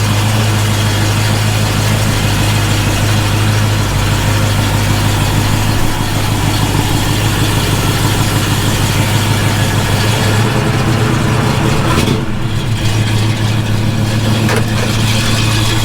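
1965 Ford Mustang engine running steadily at low speed, its note shifting briefly around ten seconds in.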